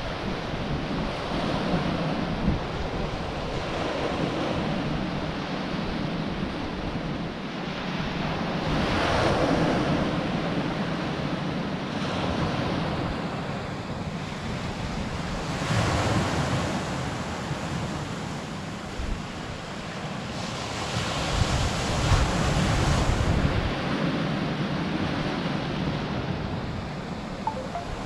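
Surf breaking and washing over a shingle beach in a light swell, rising and falling as each wave comes in, with gusty wind buffeting the microphone.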